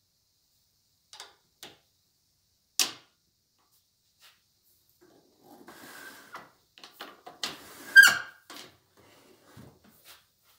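A bandsaw's black plastic carry handle being fitted onto the saw's housing. A few sharp plastic clicks and knocks, then scraping and rattling with one loud sharp click about eight seconds in.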